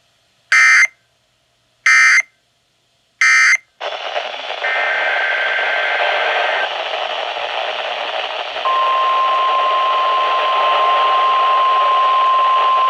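Three short bursts of EAS/SAME digital data tones, the end-of-message signal of a weather radio alert. Then receiver static hiss, and about nine seconds in the NOAA Weather Radio 1050 Hz warning alarm tone starts, a single steady tone over the static, sounded as a test of the alarm.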